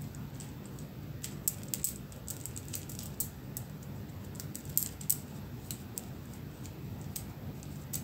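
A string of beads shaken from bare toes, the beads clicking against each other in irregular light clicks. The clicks bunch up from about a second to three seconds in and again around five seconds, over a faint steady low hum.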